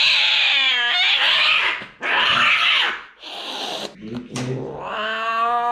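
Tabby cat hissing and spitting in three harsh bursts, the first with a falling yowl through it, then a long drawn-out yowl from about five seconds in. It is the defensive hissing of a cat in pain, held down for injections.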